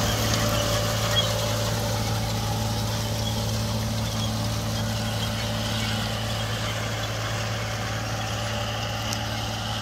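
A vehicle engine running steadily at an even speed, a constant low drone.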